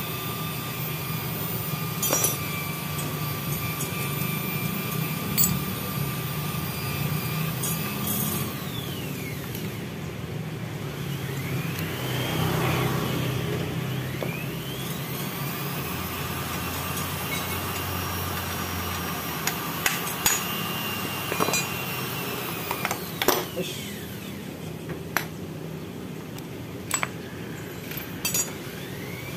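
Occasional sharp metallic clicks and clinks of hand tools on a motorcycle engine being taken apart, over a steady background engine hum whose pitch rises and falls a few times.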